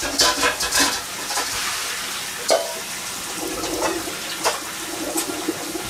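Food deep-frying in hot oil: a steady sizzle with scattered sharp pops and clicks.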